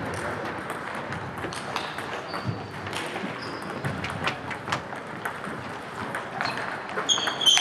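Table tennis balls clicking off bats and tables, many short irregular clicks overlapping from several tables at once, over a steady hall background. A brief high squeak comes near the end.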